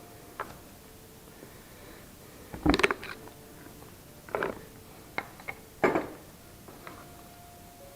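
Tools and parts of a cordless chainsaw being handled during a repair: a series of separate knocks and clicks, the loudest cluster about three seconds in, more around four and a half and six seconds.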